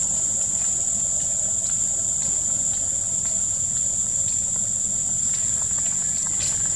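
Insect chorus: a steady, high-pitched buzz that does not change.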